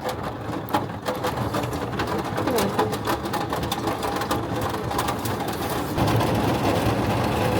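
Rain pattering densely on the roof of a campervan in a thunderstorm, a steady rush of fine drops over a low background rumble.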